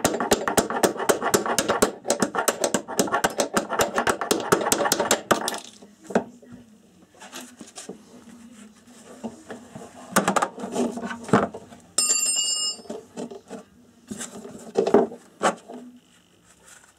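Indesit washing machine with noisy drum bearings: a fast rattling clatter for about five seconds, then scattered knocks, and a short bell-like ring about twelve seconds in.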